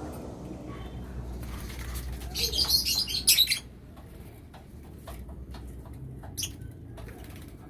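Lovebirds chattering in a loud burst of shrill high calls lasting about a second, followed later by a single short call, with scattered faint clicks.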